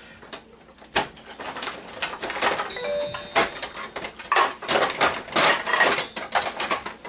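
A DVD player being taken apart by hand. There is a sharp click about a second in, then repeated scraping and rattling of its metal case and parts, with a brief squeak near the middle.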